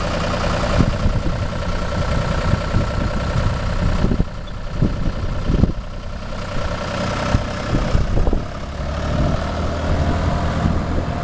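John Deere 5320 tractor's diesel engine running steadily while its front-mounted rotary broom spins against the pavement with a hissing sweep. Short gusts of wind rumble on the microphone throughout.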